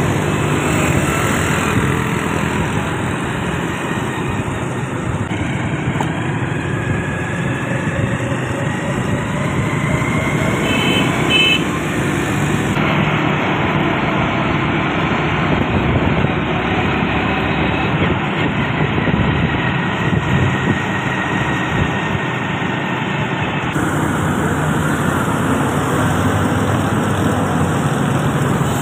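Road traffic heard from a moving vehicle: a steady engine and road drone with passing cars and motorcycles, and a quick series of short high beeps about eleven seconds in.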